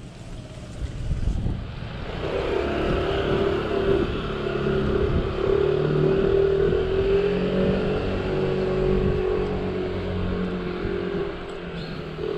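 Motor scooter's small engine running as it approaches and passes close by: a steady engine hum that grows louder over a few seconds, peaks about halfway through, then slowly fades.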